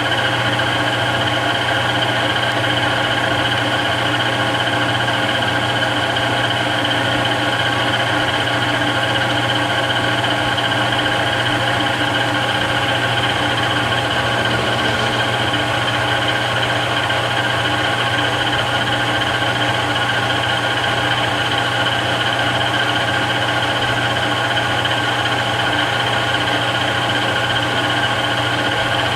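Webb Whacheon WL435 17x40 gap-bed lathe running steadily at a little over 1,000 RPM, its motor and geared headstock giving an even hum with a steady whine of several fixed tones.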